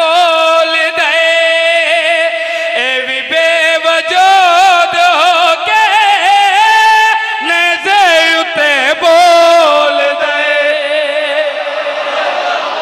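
A man's solo voice singing a line of Punjabi-Urdu religious verse in a slow, ornamented melody, holding long notes that waver and bend, in the chanted style of a majlis recitation.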